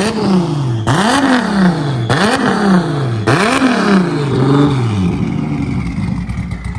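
Toyota 2JZ inline-six engine being blipped: the revs jump and fall back about once a second, five times, then settle toward idle near the end.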